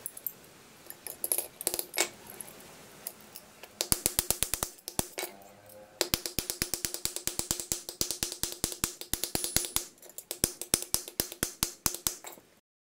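A claw hammer tapping rapidly on a steel hacksaw frame, about six to eight light blows a second, each with a short metallic ring. There are a few separate handling clicks at first, and the hammering stops suddenly near the end.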